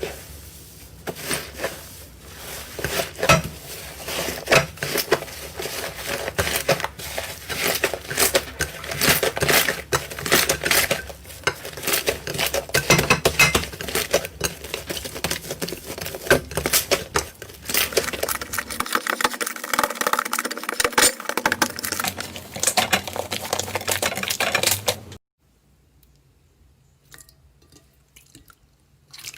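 Hands squeezing, poking and stretching slime, making a dense run of wet clicks, pops and crackles that stops a few seconds before the end.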